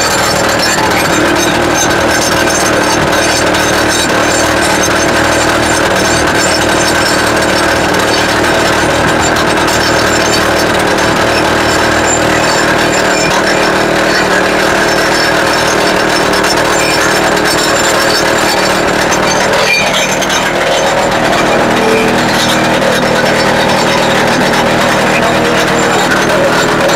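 YN30A petrol rock drill running continuously, its two-stroke engine driving the hammering drill steel into rock.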